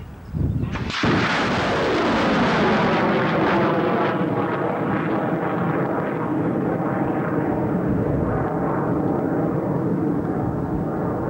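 Lance missile launch: a sudden loud blast about a second in as the liquid-fuel rocket motor fires, then the motor's continuous rushing noise, falling in pitch and slowly fading as the missile climbs away.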